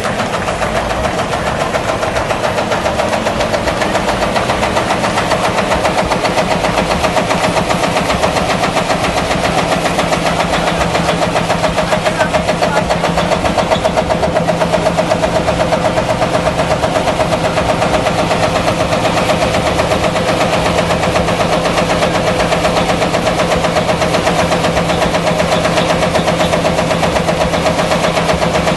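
Vintage Lanz Bulldog-style single-cylinder tractor engine running at a slow parade pace, with a steady, rapid thumping beat.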